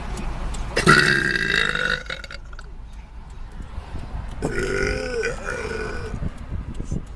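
A young woman burping twice: a long, loud burp about a second in, then a second long burp with a wavering pitch about four and a half seconds in.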